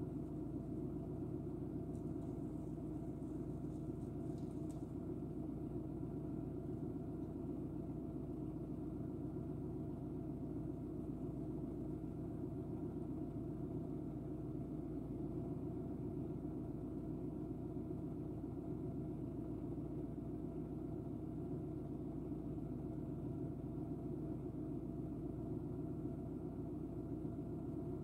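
A steady low mechanical hum with a few held tones, unchanging throughout, like an engine or motor idling.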